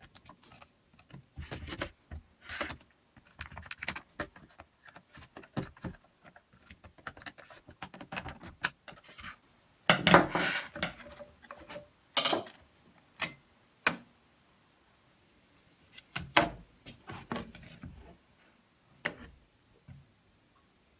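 Small hard parts of a cordless drill clicking, knocking and rattling as they are handled, in irregular bursts with short pauses, the loudest clatter about ten seconds in.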